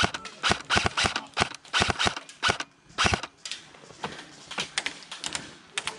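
Airsoft guns firing: a string of sharp single shots, irregularly spaced, some in quick pairs and clusters.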